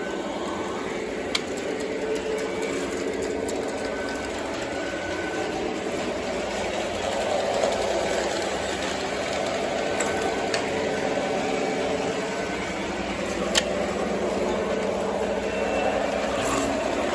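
O gauge model train running on its track: a steady electric motor hum and wheel rumble, with a few sharp clicks along the way.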